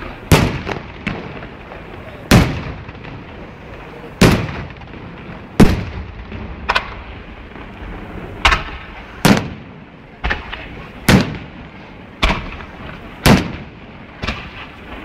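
Fireworks going off in a festa display: about a dozen sharp, loud bangs, roughly one every one to two seconds, each trailing a short echo, over a steady background rumble.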